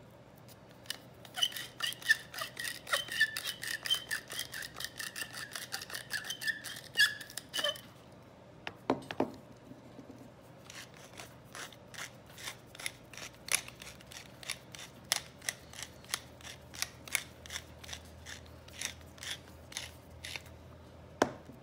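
Hand-twisted spice mill grinding seasoning: rapid clicking in two long bouts. The first bout carries a squeaky ring over the clicks and stops about eight seconds in. The second runs from about eleven seconds to near the end.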